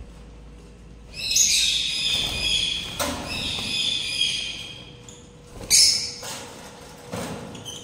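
Lovebirds calling: a fast run of high-pitched, repeated chirps lasting about three seconds, starting about a second in, then a couple of shorter bursts near the end.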